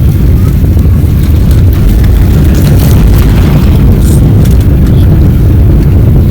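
Loud, steady low rumble of an airliner's jet engines and rushing air, heard from inside the passenger cabin.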